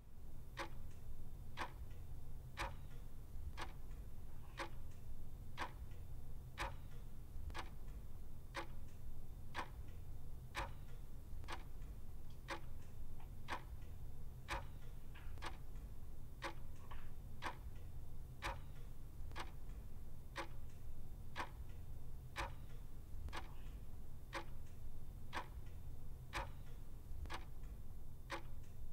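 Wall clock ticking steadily and evenly, over a low steady room hum.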